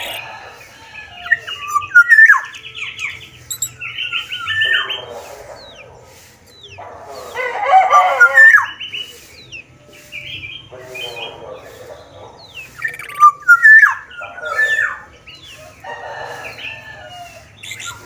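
Caged black-naped oriole of the Sumbawa variety (kepodang Sumbawa) singing in bursts: short whistled phrases mixed with harsh, nasal squawks, repeated every second or two with brief pauses. The loudest stretch is a long, harsh call about seven to nine seconds in.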